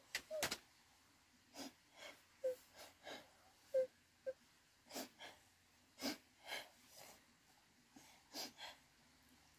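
Quiet whimpering and breathy sobbing in short, irregular bursts, about one or two a second, with a few brief high-pitched whimpers.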